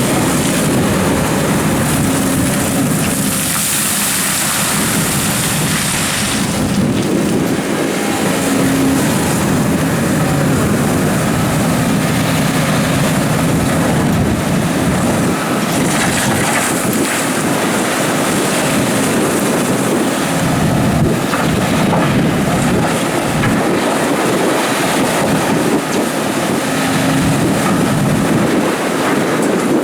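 Doosan DX300 excavator's diesel engine running steadily under load while it digs gravel, with hydraulic hiss and rough scraping of stones.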